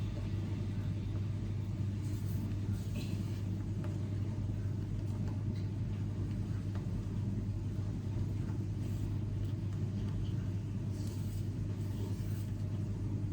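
A steady low hum, with a few faint scrapes and taps from blue icing being stirred in a bowl.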